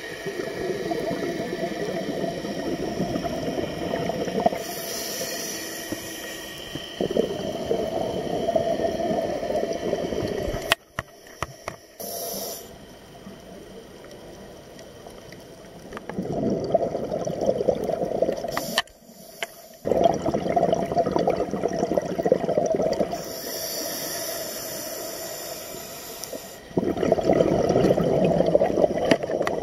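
Scuba diver breathing through a regulator, heard underwater: long crackling bursts of exhaled bubbles, about five of them, alternating with the high hiss of inhalations. The sound drops out briefly twice.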